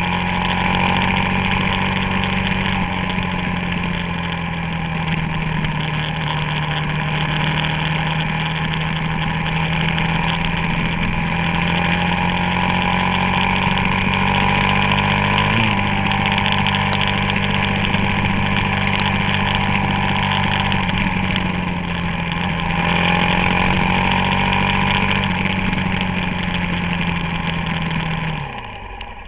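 Suzuki DR-Z400SM supermoto's single-cylinder four-stroke engine running at a steady throttle on the move, its pitch drifting only slightly. There is a quick blip about halfway through, and the engine note falls off near the end.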